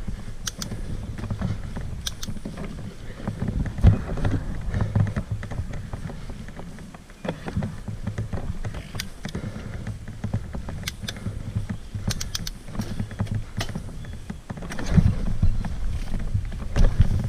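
Mountain bike ridden along a dirt trail: a steady low rumble from the tyres with scattered sharp clicks and rattles from the bike.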